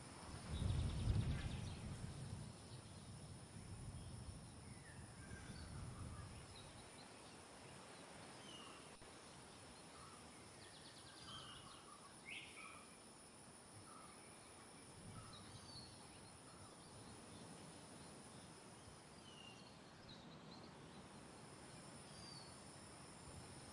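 Faint nature ambience: scattered short bird chirps over a steady high insect hum, with low rumbles in the first few seconds.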